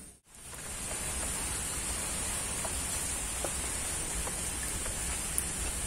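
Steady outdoor background noise with a constant high-pitched hiss and a few faint ticks, after the sound drops out briefly at the very start.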